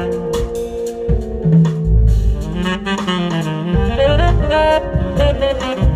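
Tenor saxophone soloing live in jazz, a fast line of quickly changing notes over a drum kit keeping time with a low accompaniment underneath.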